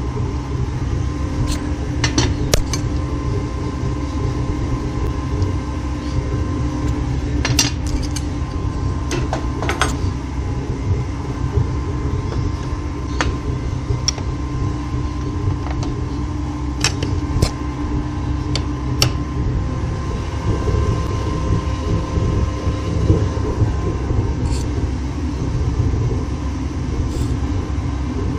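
Steady low roar of gas burners heating the melting furnace and the die. Over it come scattered sharp metallic clanks and clicks as the aluminium die, its clamps and steel tools are worked by hand.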